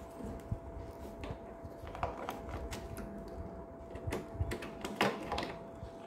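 Small plastic clicks and rustles of wires and connectors being handled while a replacement microwave door interlock switch is fitted back into place. A faint steady tone hums throughout.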